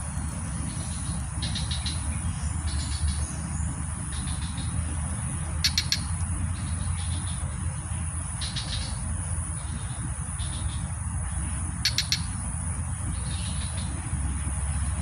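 Short, high-pitched chirps repeating every one to three seconds, over a constant low rumble and a steady thin high whine.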